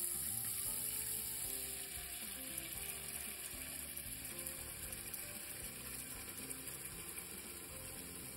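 Tap water pouring in a steady stream into a metal cooking pot, a continuous splashing hiss that slowly gets quieter. Faint background music with a simple melody plays underneath.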